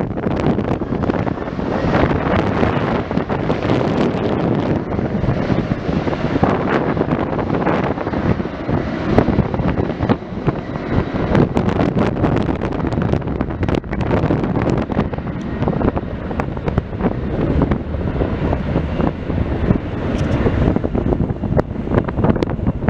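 Strong wind buffeting the microphone: a steady loud rumble with constant crackling gusts.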